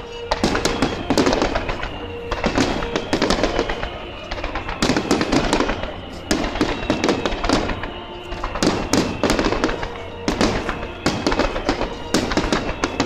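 Aerial fireworks shells going off in rapid, overlapping clusters of bangs and crackles every second or two, with music playing throughout.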